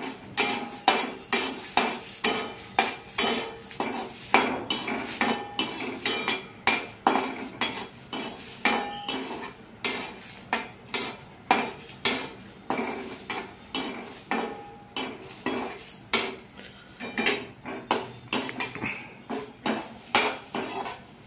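Steel slotted spoon scraping and knocking against a steel kadhai while green peas are dry-roasted in it: a steady run of metal clinks, about two to three a second, some with a short ring.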